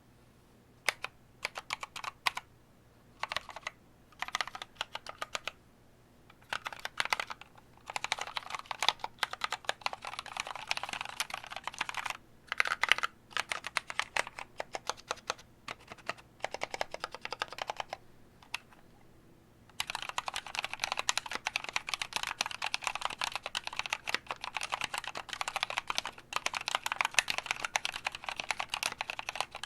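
Mechanical keyboard with linear Kailh Novelkeys Cream switches and DCP-profile keycaps being typed on: short clusters of keystrokes with pauses at first, then continuous fast typing from about two-thirds of the way through. Only the springs are lubed, so there is no spring ping, just a light scratchy feel to each press.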